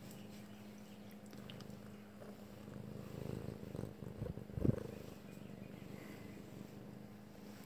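Domestic cat purring close up, a rough low rumble that grows loudest a little past halfway, with one brief thump at its peak.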